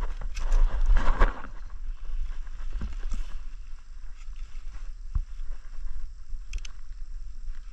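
Wind rumbling on the microphone, with rustling and a few light knocks of cables being handled. The rustling is loudest about a second in.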